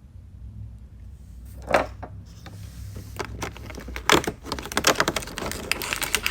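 Small plastic toy packaging and figures being handled: a couple of sharp clicks, then from about four seconds in a busy run of light clicks and taps as the little doors and figures are moved.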